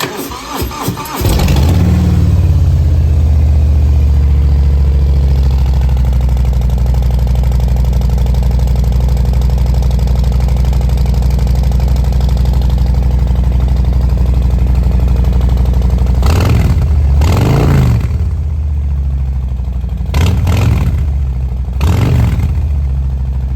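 Harley-Davidson Street Bob's 114 Milwaukee-Eight V-twin, through Cobra Neighbor Haters slip-on exhausts with their baffles nearly wide open. It cranks over for about a second, catches and settles into a loud, steady idle. In the last third it is blipped four quick times.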